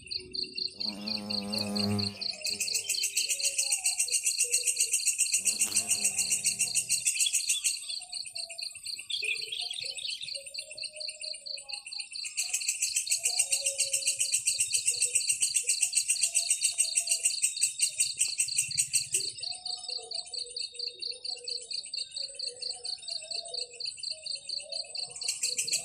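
Nature ambience of insects trilling steadily in fast pulses, with a higher, louder trill that swells in and drops out several times, and scattered short bird calls underneath.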